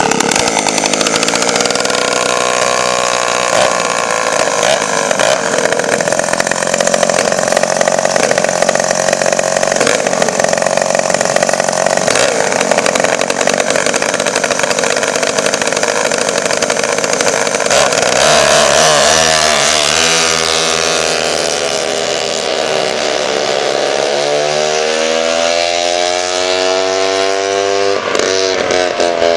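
Twin Homelite two-stroke chainsaw engines on a go-kart, running at high revs with a steady note. After about 18 seconds the pitch falls and then climbs again.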